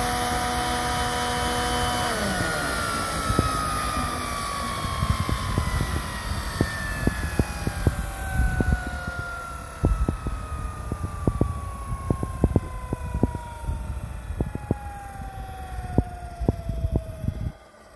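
Scale model Sikorsky S-76 helicopter shutting down. Its steady engine whine breaks off about two seconds in, then a whine falls slowly in pitch for some fifteen seconds as the rotors spin down, with irregular low thumps throughout. The sound cuts off abruptly near the end.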